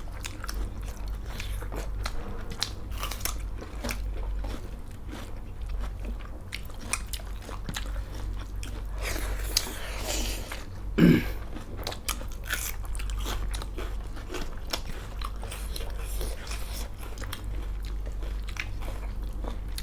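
Close-miked eating sounds: chewing, biting and small crunches of a mouthful of pork chilli, with many short wet clicks. A single louder knock comes about eleven seconds in, over a steady low hum.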